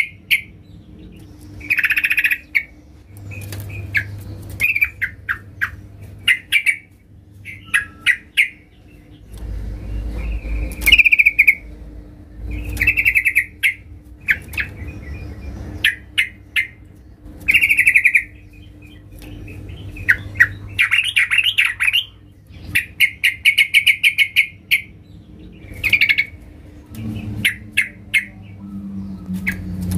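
Yellow-vented bulbul singing loud, rapid chattering phrases, one burst every second or two.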